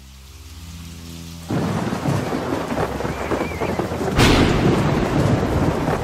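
A low sustained tone fades up. About a second and a half in, heavy rain sets in suddenly, and about four seconds in a sharp thunderclap sounds over it: a cartoon storm sound effect.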